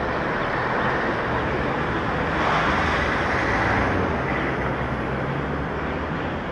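Steady street traffic noise, swelling for a second or so as a vehicle goes by about two and a half seconds in.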